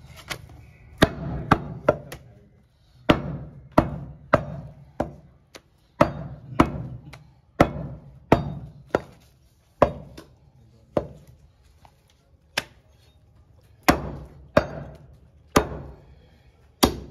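A large curved cleaver chopping goat meat on a thick round wooden block. The sharp chops come at an uneven pace, roughly one a second, with some in quick pairs.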